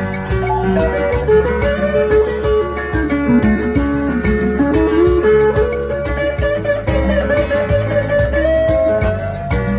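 Instrumental passage of a song: plucked guitar with a melodic lead line that dips low and climbs back up midway, over bass and a steady beat.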